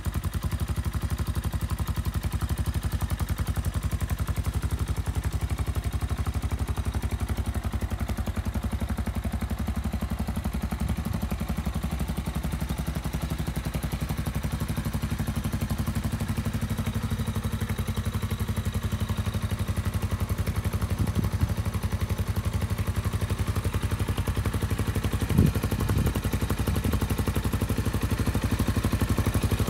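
Alfarad 250 dirt bike's air-cooled single-cylinder engine idling steadily in a fast, even pulse. A couple of brief knocks come in the second half.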